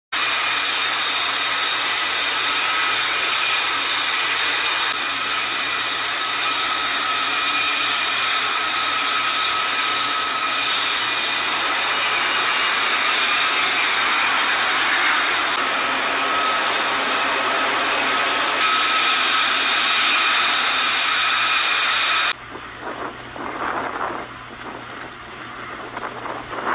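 Loud, steady turbine-engine whine over a hiss, with several high tones held steady, that cuts off abruptly about 22 seconds in. What follows is a quieter, uneven rush like wind on the microphone.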